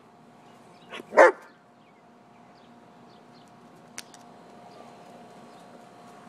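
German shepherd giving a single short, loud bark about a second in. A faint sharp click follows about four seconds in.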